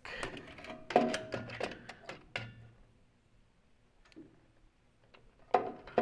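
A run of sharp metal clanks and knocks, some ringing briefly, during the first two and a half seconds as the wood chipper's jammed, bent plate is worked on. A few faint ticks and one more knock come near the end.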